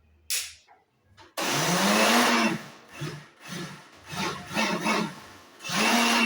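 Countertop blender motor grinding oats, bananas, eggs and water into pancake batter. It runs for about a second, gives several short pulses, then runs steadily again near the end.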